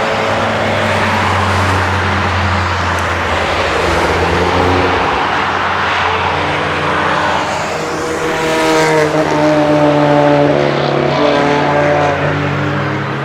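Cars driving past on a racetrack with their engines revving hard. About eight seconds in, one engine grows loudest as its pitch climbs, drops, and climbs again while it passes.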